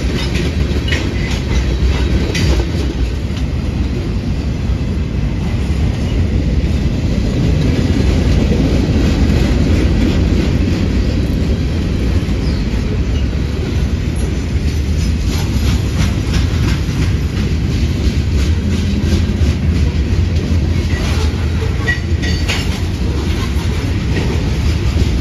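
Freight cars rolling past close by: a steady low rumble of steel wheels on rail, with irregular clicks and clacks as the wheels cross the rail joints.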